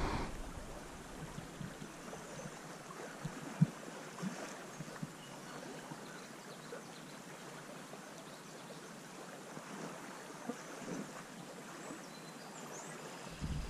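Shallow creek water running steadily over a sandy riffle, with a soft, even babble and a single sharp tick about three and a half seconds in.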